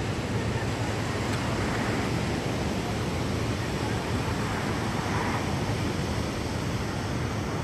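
Steady rushing noise of wind and breaking surf, with a low hum underneath.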